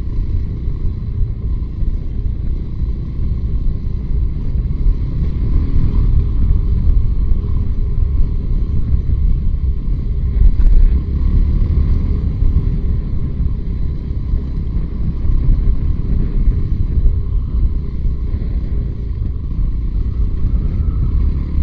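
Off-road motorcycle under way, engine running with a loud, unsteady low rumble.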